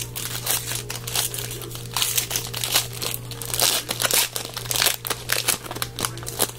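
Crinkling and rustling of a foil trading-card pack wrapper being handled and torn, in dense irregular crackles that grow loudest about halfway through, over a steady low electrical hum.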